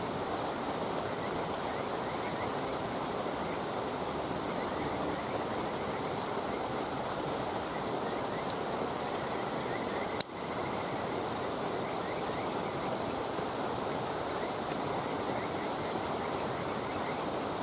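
Steady rushing noise like flowing water around a burning wood campfire, with one sharp pop from the fire about ten seconds in.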